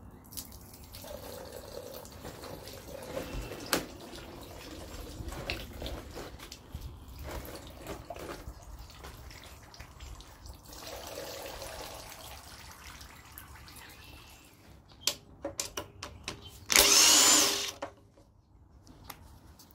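Engine oil trickling and dripping into a drain tub, with a few clicks of tools being handled. About 17 seconds in, an impact wrench runs in one short burst of under a second, undoing an oil pan bolt.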